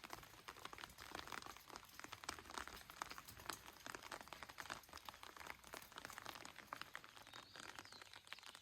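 Rain falling: a faint, dense patter of many small drops ticking irregularly.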